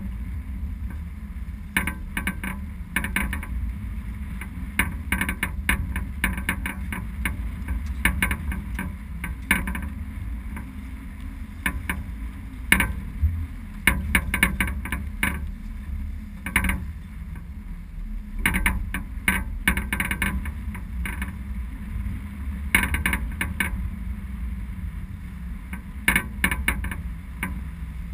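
Wind buffeting the microphone aboard a sailboat heeled under sail: a steady low rumble, broken every few seconds by crackling clusters of gusts.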